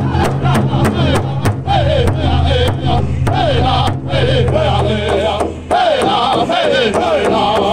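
Powwow drum group singing a chicken dance song: several men sing in high, wavering voices while beating a large shared powwow drum together in a steady fast beat, about three to four strokes a second.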